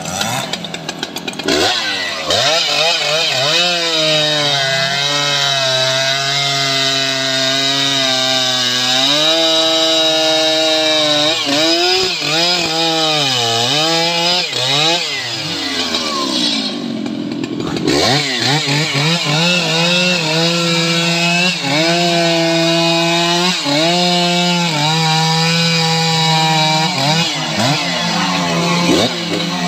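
Stihl MS 881 two-stroke chainsaw revving up and cutting through a teak log, its engine pitch sagging and recovering as the chain bites into the wood. About two-thirds of the way through the throttle drops off for a moment, then the saw revs back up and cuts again.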